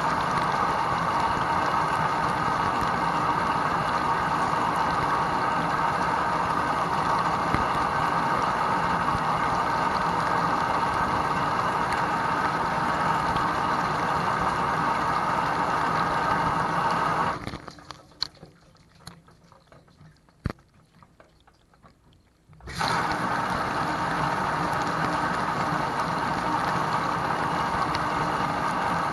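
Whirlpool dishwasher wash cycle heard from inside the tub: the wash pump running and water spraying and splashing steadily, muffled. About two-thirds of the way through it cuts out for about five seconds, leaving only a few faint clicks, then starts again.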